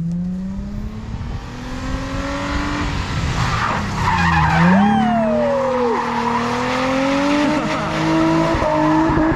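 Nissan 350Z's V6 engine revving up hard, then dropping briefly about four seconds in as the car is thrown into a handbrake-entry drift, and climbing again as it slides. The tyres hiss and scrub across asphalt and dirt, with a short tyre squeal about five seconds in.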